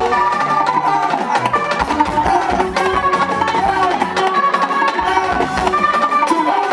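Live band playing Senegalese mbalax dance music: rapid, dense sabar drum strokes over a repeating keyboard melody.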